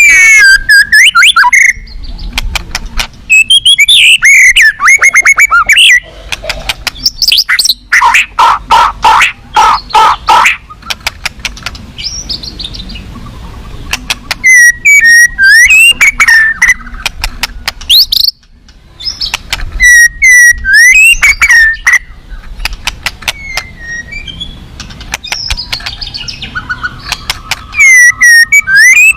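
White-rumped shama (murai batu) singing loudly at close range: a long, varied song of clear gliding whistles, fast rattling chatter and rapid trills, broken by short pauses. The song is packed with imitated phrases ('isian').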